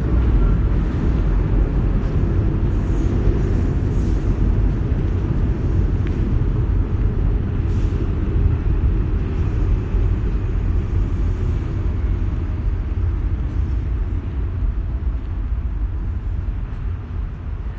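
Steady low rumble of outdoor background noise picked up by a phone's microphone, with no clear single event standing out.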